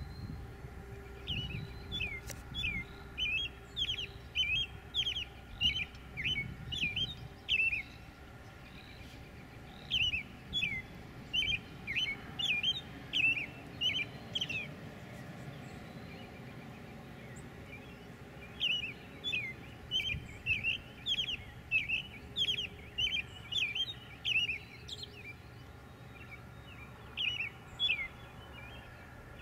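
A songbird singing in bouts: quick runs of short, down-slurred whistled notes, about two a second. There are three long bouts separated by pauses, and a short one near the end.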